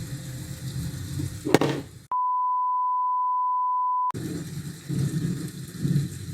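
Low city traffic rumble with a sharp knock about a second and a half in. Then a steady two-second beep at one pitch replaces all other sound, and the traffic rumble returns.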